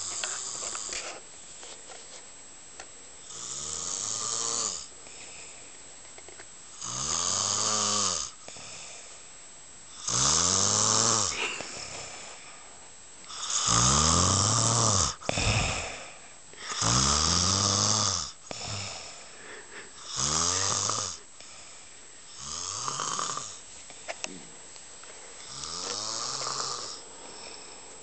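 A sleeping man snoring loudly, about nine long snores, roughly one every three seconds, each with a pitch that rises and falls.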